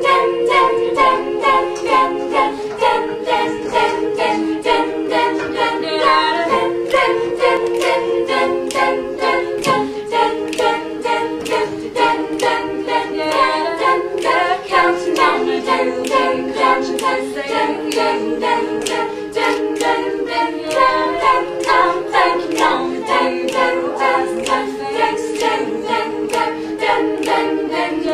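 All-female a cappella group singing in close harmony, sustained vocal chords layered under a steady, crisp percussive beat.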